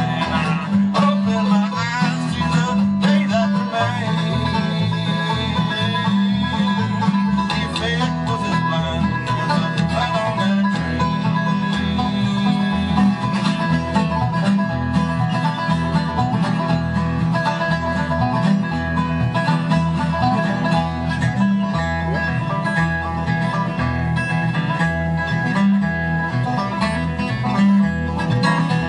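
Banjo, acoustic guitar and upright bass playing a bluegrass tune without vocals, an instrumental break with quick banjo picking over a steady bass line.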